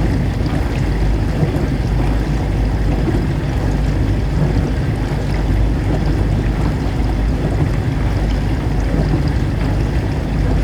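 Dishwasher running, a steady low motor hum under the even rush of water spraying inside the machine.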